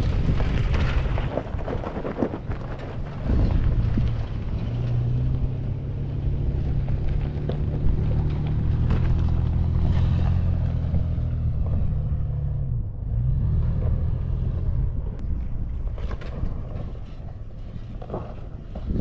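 2007 Toyota FJ Cruiser's 4.0-litre V6 engine working under load as the truck climbs a steep dirt hill. Its note holds steady for several seconds, eases off briefly about two-thirds through, then picks up again, with wind buffeting the microphone throughout.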